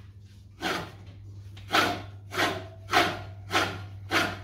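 Silent Scott's Deluxe reel mower being backlapped: the hand-turned reel blades scrape against the bed knife through lapping compound, about six rhythmic scrapes starting just after half a second in, one each time a blade sweeps the bed knife. The scraping is heavy enough that the owner doubts a sharp reel should scrape this much and means to adjust the bed knife. A steady low hum runs underneath.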